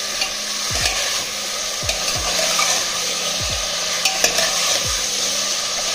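Metal slotted spoon stirring drumstick pods and potatoes in masala inside an aluminium pressure cooker, over a steady sizzle of frying.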